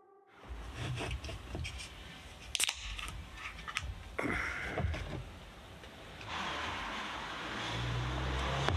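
Beer poured from a can into a glass: a steady foaming hiss over the last couple of seconds, after a scatter of clicks and knocks.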